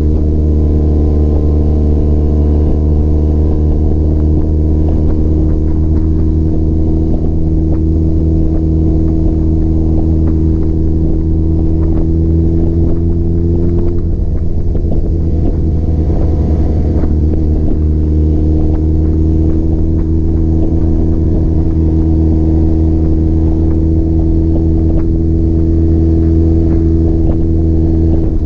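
Honda CBX 750 cafe racer's air-cooled inline-four engine, heard from the rider's position while cruising under light throttle. Its steady note rises slowly, breaks briefly about halfway through, then climbs gradually again.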